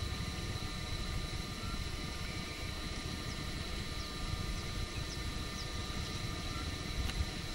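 Steady low rumble of a vehicle on the move, with a few constant whining tones above it.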